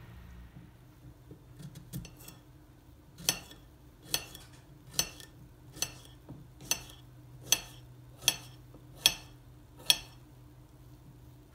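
A kitchen utensil clinking against a dish or pan in a slow, even rhythm: a few light clicks, then nine sharp ringing clinks a little under a second apart, over a faint steady hum.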